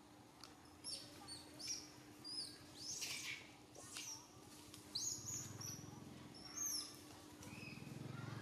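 A dozen or so short, high chirping calls, each falling in pitch, spread over several seconds. A low rumble rises near the end.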